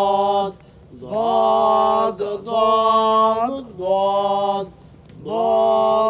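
Male voices chanting an Arabic letter drill in a sing-song tone, syllables on the letter ḍād doubled with a shadda, each held on one steady pitch for about a second with short breaks between.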